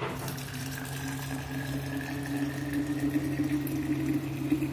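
Arabic coffee poured in a steady stream from a steel saucepan into a vacuum flask. The pitch rises slowly as the flask fills.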